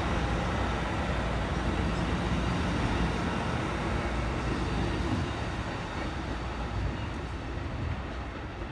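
Amtrak Pacific Surfliner passenger train's bilevel cars rolling past, steel wheels on rail making a steady rumble. The sound eases off from about five seconds in as the last car, the cab car, goes by and the train moves away.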